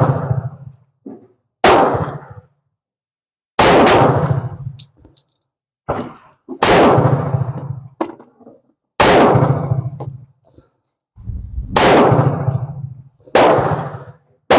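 Tisas 1911A1 Service Special .45 ACP pistol fired slowly through a magazine of cast-lead handloads: about six loud shots spaced two to three seconds apart, each with a ringing tail, with a few quieter reports in between.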